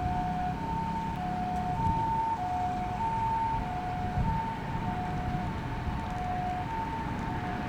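Japanese ambulance siren on a Nissan Paramedic sounding the two-tone hi-lo 'pii-poo' pattern, a high and a low tone alternating about every half second, over steady road traffic rumble.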